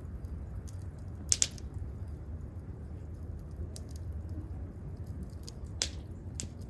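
Campfire wood crackling: scattered small snaps, with two louder pops about a second and a half in and near six seconds, over a low steady rumble.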